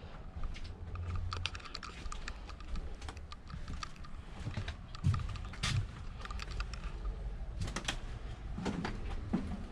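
Irregular light clicks and knocks of footsteps and loose debris in the gutted metal cabin of a scrapped airliner, over a low rumble. The loudest knocks come about five seconds in and just before eight seconds.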